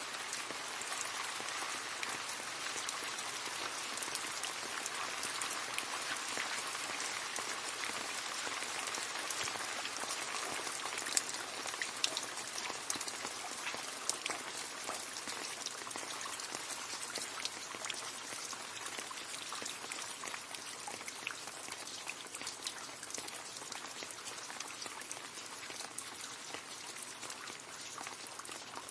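Steady rain splashing into a puddle: a dense hiss of drops with many small separate plinks, a few sharper drop splashes about halfway through.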